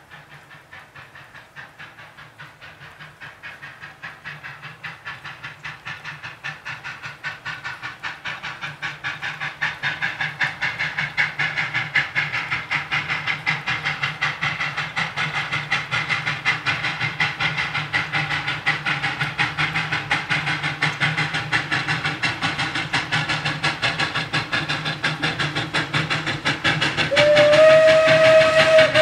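Steam locomotive 232 working hard inside a tunnel, its exhaust chuffing in a fast, even beat that grows steadily louder as it nears the portal. Near the end its steam whistle sounds, one long chord.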